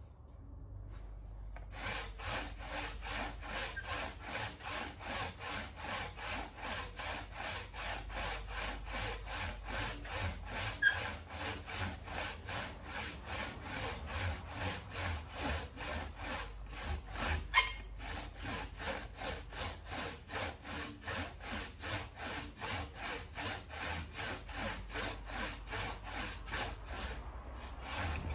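Hand saw cutting through wood with steady back-and-forth strokes, about two to three a second, starting about two seconds in. Two sharp clicks stand out above the sawing, one near the middle and one a little later.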